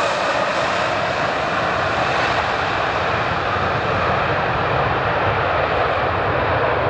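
Rolls-Royce Trent 700 turbofans of an Airbus A330-243 running at takeoff thrust during the takeoff roll: a loud, steady jet noise heard from behind as the airliner accelerates away, its highest hiss slowly dulling.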